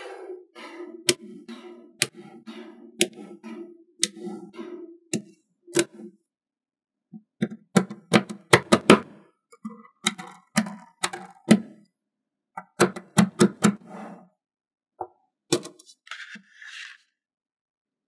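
Small neodymium magnet balls snapping and clicking together as they are placed, in irregular runs of sharp clicks and light knocks with short pauses.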